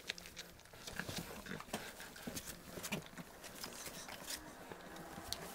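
Four-week-old bullmastiff puppies jostling at close range: scattered small clicks and rustles of paws and bodies in wood shavings, with a few short little vocal noises from the puppies.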